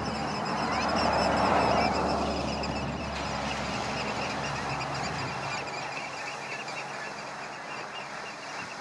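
The paddle steamer Waverley coming alongside a pier: a steady low hum with the wash of water, swelling about a second or two in and then slowly easing.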